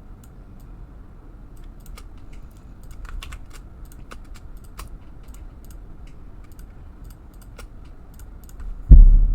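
Computer keyboard and mouse clicks, sparse and irregular, while working in design software. Near the end, a single loud, dull low thump.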